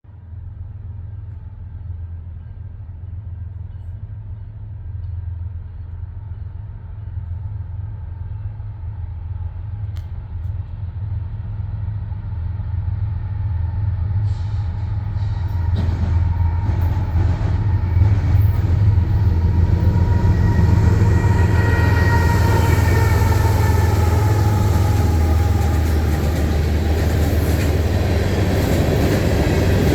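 CN diesel freight locomotives approaching: a low engine rumble that grows steadily louder for about twenty seconds, then holds level as the train draws close. Faint higher tones that drift downward join it past the midpoint.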